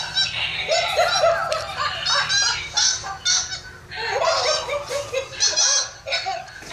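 A laughing toy monkey playing its recorded laughter: rapid repeated cackles and high chattering squeals with hardly a break.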